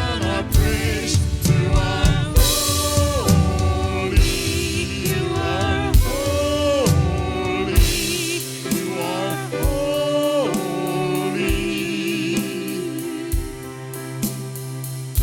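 Live worship music: voices singing long held notes over a band with drum kit and cymbals, the deep bass and drums thinning out about halfway through.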